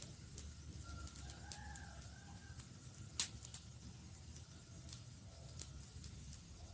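Campfire crackling with scattered sharp pops, the loudest about three seconds in, over a low steady rumble. Behind it, about a second in, comes a faint drawn-out wavering bird call lasting nearly two seconds.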